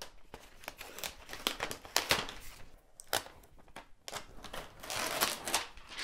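Thin clear plastic protective film being peeled off a laptop's metal underside and crinkled in the hands: irregular rustling with small crackles, denser about five seconds in as the sheet is pulled away.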